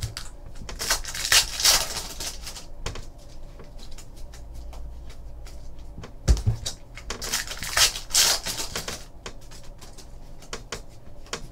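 Trading cards being handled and flipped through a stack by hand: scattered light clicks with two spells of sliding, rustling card noise, and a single knock about six seconds in.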